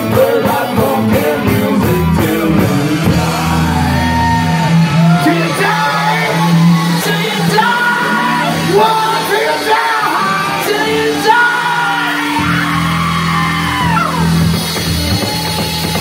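Live rock band playing: a lead singer singing over electric bass, electric guitar and drum kit.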